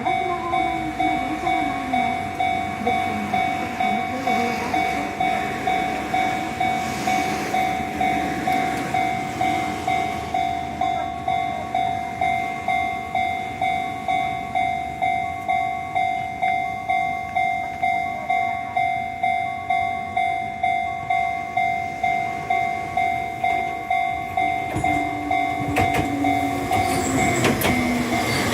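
Japanese level-crossing warning bell ringing steadily at about one and a half strikes a second. Near the end an Enoden train comes in, its wheels clicking over the rail joints under the bell.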